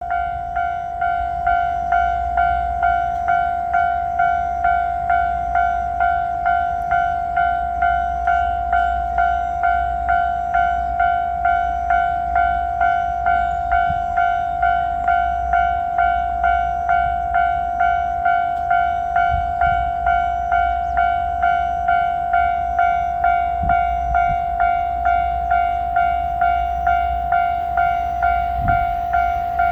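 Japanese railway level-crossing warning bell ringing steadily, an evenly repeated electronic clang at a little under two strikes a second, over a low rumble.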